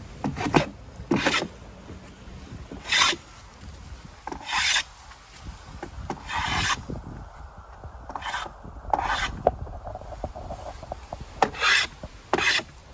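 Stanley No. 4 hand plane taking shavings off the wooden edge of a casement sash: about nine short strokes, one every second or two.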